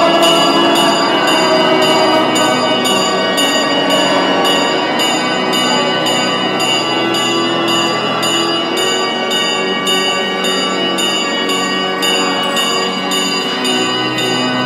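Church bells ringing continuously in a festive peal: many bell tones overlapping, with rapid, evenly repeated strikes.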